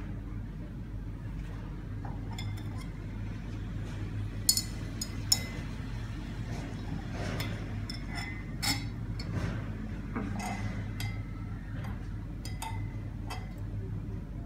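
Glass stirring rod clinking against the side of a glass beaker while stirring liquid: a scatter of light clinks, the two sharpest about four and a half and five seconds in, over a steady low hum.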